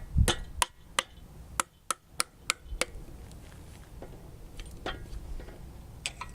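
Hammer taps on a stuck part of an aluminium Honda D16Y8 engine block, struck to knock it loose. About seven sharp, irregular strikes come in the first three seconds, then a few more spaced out near the end.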